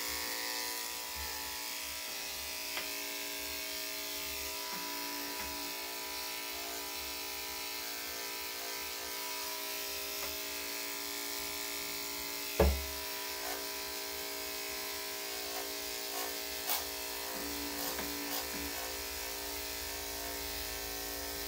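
Corded electric dog clippers running with a steady motor hum as they shave a Shih Tzu's coat. A single knock about twelve and a half seconds in is louder than the hum.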